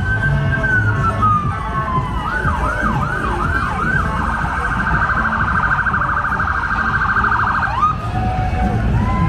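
Emergency vehicle siren cycling through its tones: a slow falling wail, then about five quick rising yelps, then a rapid warble for nearly four seconds that cuts off near the end, over a steady low rumble.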